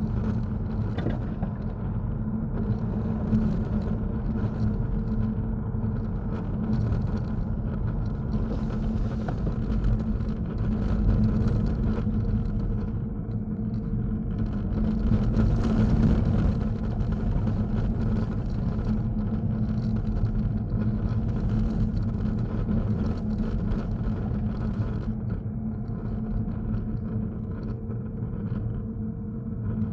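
A car driving on a snow-covered road, heard from inside the cabin: a steady low engine hum mixed with rolling noise from Continental ExtremeContact DWS06 tyres on packed snow. The noise gets louder for a moment about halfway through.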